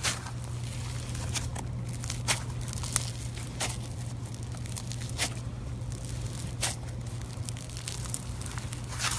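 Floam slime, slime packed with tiny foam beads, being worked and pressed, giving sharp crunchy crackles and pops at irregular intervals, roughly one a second.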